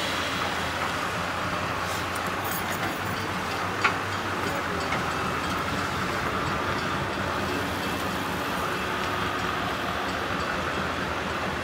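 Diesel freight locomotive approaching slowly, its engine running as a steady low hum over general rail noise, with one sharp click about four seconds in.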